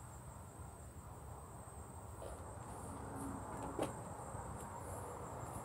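Faint outdoor background: a low rumble under a thin, steady high-pitched whine, with a couple of soft ticks.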